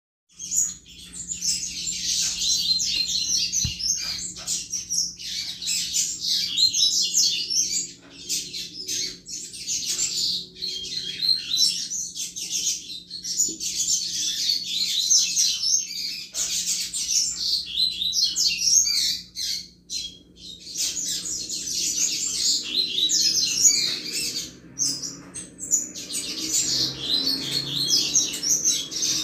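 Double-collared seedeater (coleiro) singing its 'canto chuva' song: a fast, near-continuous run of high twittering notes, with short breaks about 8 and 20 seconds in.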